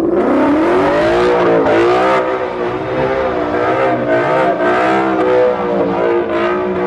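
Car engine held at high revs, as in a burnout, with tyre noise over it. The pitch climbs steeply at the start, then wavers up and down as the throttle is worked.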